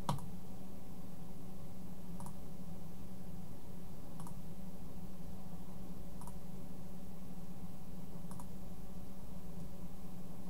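Computer mouse button clicked five times, one click about every two seconds, as answers are picked in an on-screen puzzle, over a steady low electrical hum.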